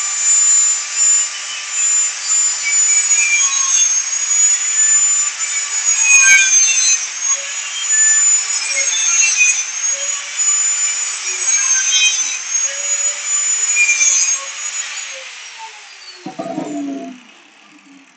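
Angle grinder with a cut-off disc running at a high whine, its pitch dipping briefly every few seconds as the disc bites into steel welded mesh. About fifteen seconds in it is switched off and its pitch falls as it winds down, followed by a short clatter.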